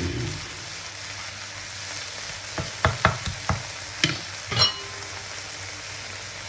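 Sliced button and black trumpet mushrooms sizzling steadily in a hot frying pan as a wooden spatula stirs them, with a run of sharp knocks of the spatula against the pan from about two and a half seconds in.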